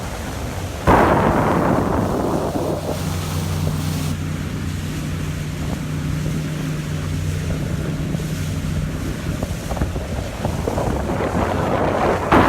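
A boat engine running steadily with a low hum, under wind buffeting the microphone and water rushing past the hull. A gust of wind noise hits suddenly about a second in.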